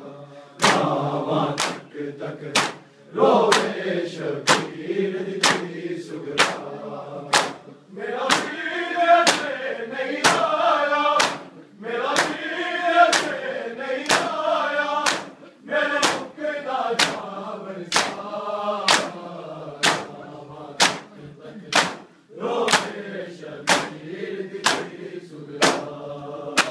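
Men chanting a noha together in unison while beating their bare chests in time. Their hands land as sharp slaps in a steady rhythm, a little more than one a second.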